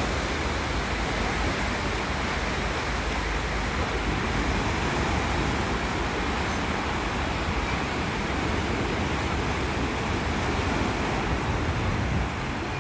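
Black Sea waves breaking and washing against the shore, a steady rushing noise.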